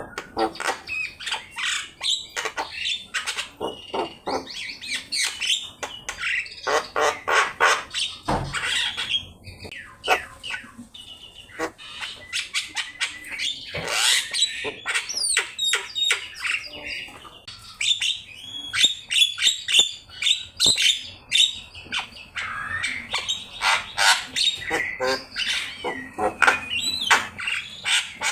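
Javan myna singing in a long, varied run of rapid chattering notes, harsh squawks and whistled glides.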